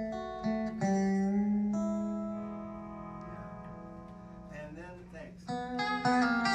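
Telecaster electric guitar played clean: a few picked notes, then one long note left to ring and fade, a quick wavering pitch bend near five seconds, and a new run of picked notes.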